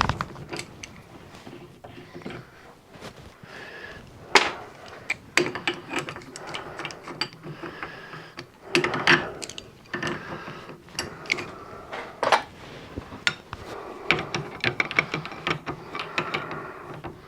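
Small metal parts and fittings being handled: irregular clicks, clinks and knocks, some with a brief metallic ring.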